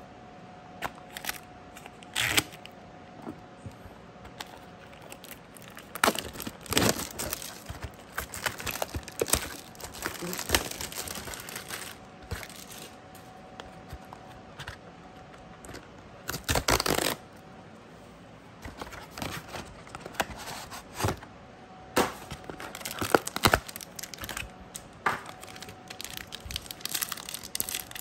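Plastic shrink-wrap on a Magic: The Gathering collector booster box being crinkled and torn off. It comes as irregular sharp crackles and rustles in clusters, with short pauses between them.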